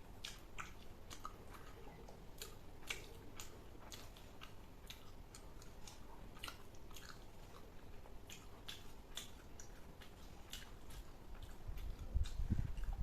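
A person chewing a mouthful of fried rice and veg Manchurian close to the microphone, with many small wet mouth clicks several times a second at an uneven pace. A louder low sound comes in near the end.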